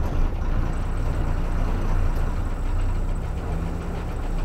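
A motor vehicle's engine running steadily, heard from inside the cabin as a low, even rumble.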